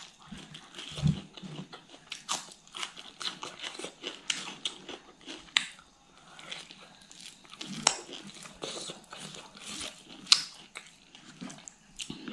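Close-miked mouth sounds of a person eating rice and fish curry by hand: chewing, crunching and wet smacks, in a dense run of sharp clicks. A low thump comes about a second in, and the loudest smacks come near the end.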